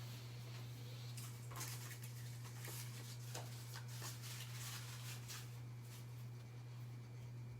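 A steady low electrical hum, with faint handling noises, light clicks and rustles, for a few seconds in the middle.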